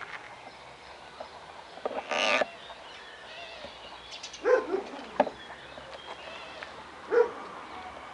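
Outdoor background with an animal calling out briefly three times: about two, four and a half, and seven seconds in.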